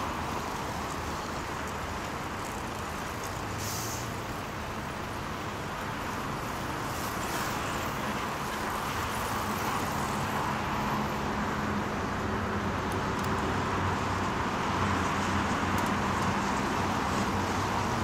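Steady road traffic noise with a low engine hum, growing slightly louder toward the end.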